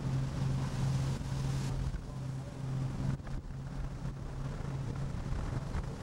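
Steady drone of a fishing boat's diesel engine under a rush of wind on the microphone and breaking seas.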